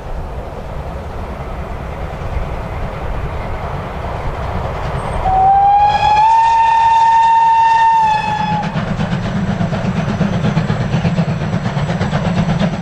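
Class 52 freight steam locomotive under way, sounding its steam whistle once for about three seconds, the pitch rising slightly at the start and sagging as it stops. Around it and after it the engine keeps working with a fast, low, rhythmic beat that grows louder in the second half.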